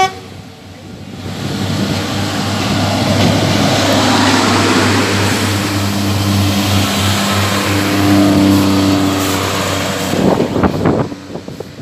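Class 144 Pacer diesel railbus passing close alongside the platform: its underfloor engine hums steadily and the wheels and rails rumble, growing louder over the first few seconds as the cars go by. A cluster of sharp knocks comes about ten seconds in.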